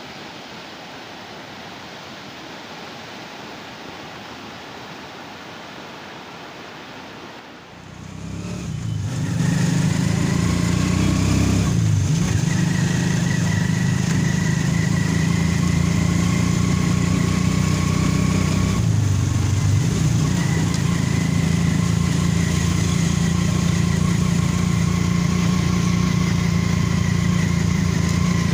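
Floodwater of a swollen river rushing as a steady, even noise. About eight seconds in it gives way to the much louder, steady running of a vehicle engine close by, which dips briefly twice.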